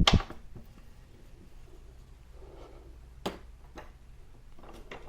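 Mostly quiet, with a few scattered metal clicks and knocks as hand tools and the loosened rear axle nut are handled: a sharp knock at the start and single clicks past the middle.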